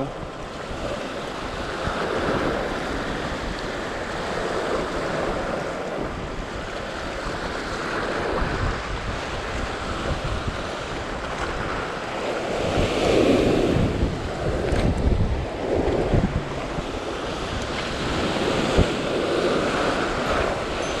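Sea swells surging and breaking over shoreline rocks, rising and falling every few seconds, with wind rumbling on the microphone. Two brief sharp knocks sound in the later part.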